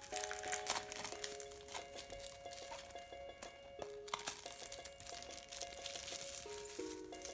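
Clear plastic wrap crinkling and tearing as it is peeled off a small cardboard toy blind box by hand, in many short crackles. Background music with a simple melody of held notes plays underneath.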